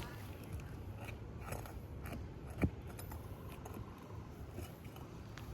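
Faint scraping and small clicks of hand work on asphalt roof shingles as a tab is lifted to test whether it can be repaired, with one sharper knock about two and a half seconds in.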